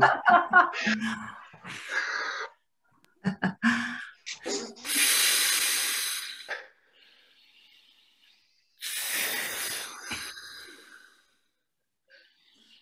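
Two long, forceful breaths blown out through the mouth, each about two seconds long and about four seconds apart, miming blowing up an air mattress by mouth. They follow a few short voice sounds and laughs.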